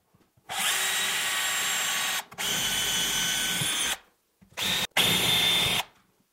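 Cordless drill pre-drilling clearance holes, a hair bigger than a 2-inch screw, through the side of an IKEA cabinet. The motor runs four times with short stops between holes: two runs of about a second and a half each, then a brief burst and a shorter run close together near the end.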